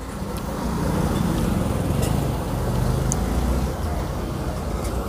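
Road traffic: a motor vehicle's low engine rumble that swells about a second in and eases off near the end.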